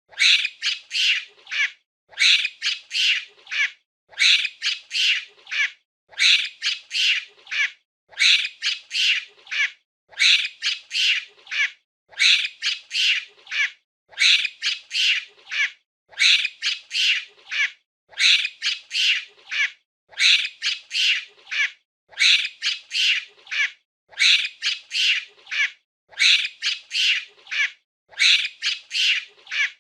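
Monkey calls: bursts of four or five quick, high-pitched screeching calls. The bursts repeat in an identical loop about every two seconds, with short silences between them.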